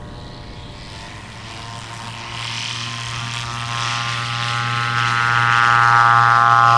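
Zenith 701 STOL's Rotax 914 Turbo four-cylinder engine and propeller at full takeoff power, a steady pitched drone that grows louder from about two seconds in as the plane rolls and lifts off toward the camera.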